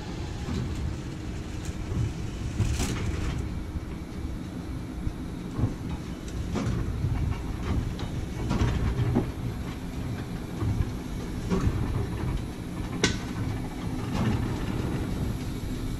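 Vintage streetcar rolling slowly over a newly laid track switch: a steady low rumble of steel wheels on rail, with a few sharp clicks and knocks as the wheels cross the switch rails and joints. The loudest knock comes about 13 seconds in.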